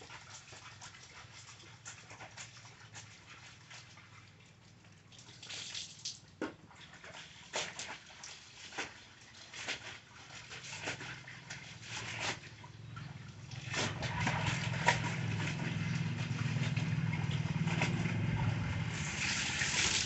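Clothes being hand-washed in a basin of soapy water: irregular splashes and sloshing as the laundry is scrubbed and dunked, ending with water pouring off a garment lifted from the tub. A low steady hum runs underneath and grows louder about two-thirds of the way through.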